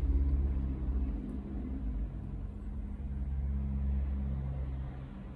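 Car engine and road rumble heard from inside the cabin while driving: a steady low drone with a faint engine hum.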